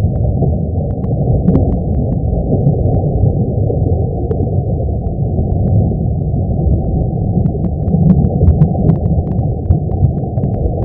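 Low, steady rumbling noise offered as the sound of the Sun: solar data turned into audio. Scattered faint clicks sit on top of it, more of them near the end.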